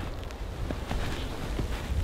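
Wind rumbling low on the microphone, with scattered light ticks and crunches.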